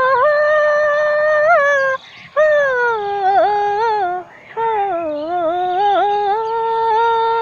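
A woman singing unaccompanied, drawing out long wordless notes on an 'o' vowel at the close of a Bengali song. The notes come in three held phrases with short breaths between, the last note held steady to the end.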